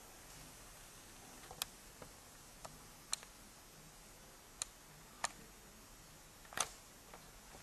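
Sparse sharp clicks and taps, about seven at irregular intervals, over a faint steady hiss.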